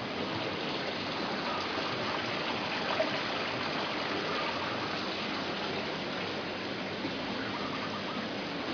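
Steady running water splashing into a small garden fish pond.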